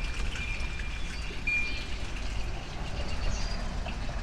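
Small birds chirping and calling, with thin, high whistled notes held for a moment at a time and short quick chirps above them, over a steady low rumble.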